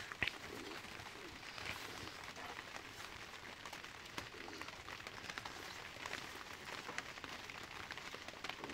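Faint steady hiss with scattered light ticks, and a ladle knocking once against a metal cooking pot just after the start.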